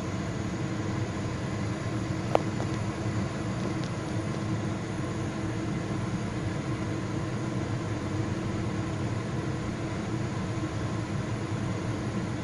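Steady low mechanical hum of a running machine, with a single sharp click about two seconds in.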